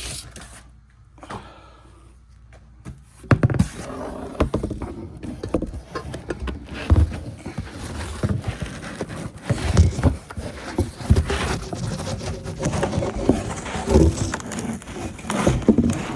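Irregular scraping, clicks and knocks of metal engine parts being handled as the timing cover is worked off a GM 5.3L L84 V8, starting about three seconds in.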